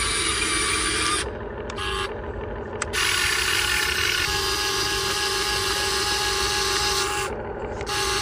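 Small electric motor and gears of an RC truck whirring steadily, cutting out for a moment about a second in and again near the end.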